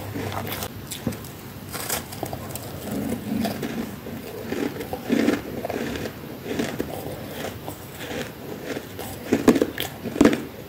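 Freezer frost being bitten and chewed close to the microphone: irregular crispy, squeaky crunches, the heaviest about three and a half seconds in and near the end. Fingers crunch through loose frost in a plastic tub between bites.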